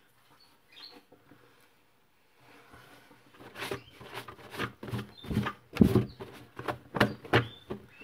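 A cloth rubbing and wiping across the plastic inner liner of a refrigerator, with squeaks and light knocks. It starts a few seconds in and gets busier and louder towards the end.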